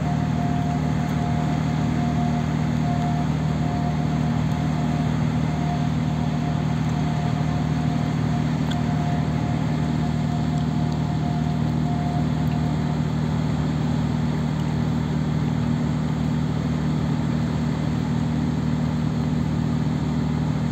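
Tugboat's diesel engines running hard astern while towing a container ship off the quay: a steady deep drone, with a thin higher whine that fades out about two-thirds of the way through.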